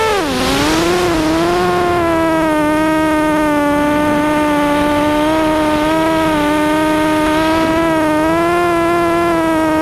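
FPV racing quadcopter's brushless motors and propellers whining, as picked up by its onboard camera. The pitch swoops up and drops sharply in the first second, then holds a steady whine with small rises and dips as the throttle changes.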